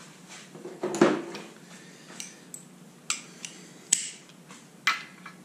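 Metal hand tools clinking and knocking: a few sharp metallic clicks and taps, the loudest about a second in, as a socket and wrench are handled on the engine.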